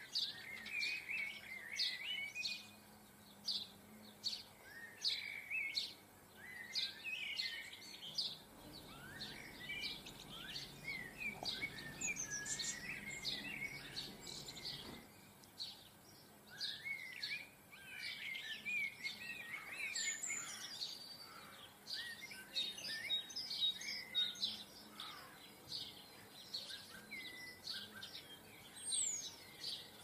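Small garden songbirds chirping and twittering, many short high calls overlapping one another throughout.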